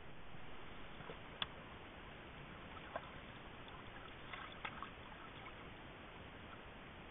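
A few sharp clicks and snaps over a steady hiss from the trail camera's microphone, made by a black bear moving right up to the camera. The loudest snap comes about a second and a half in, with a short cluster of clicks about four and a half seconds in.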